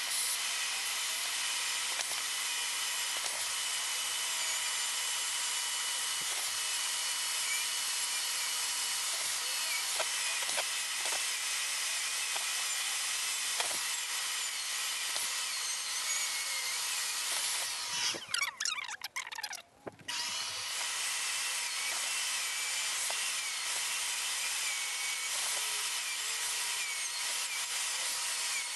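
Dremel rotary tool with a small cutting bit running at high speed, cutting a groove through the cured fiberglass and resin of a surfboard, with a vacuum running alongside. The sound is a steady whine and grind that breaks off for about two seconds about two-thirds of the way through, then resumes.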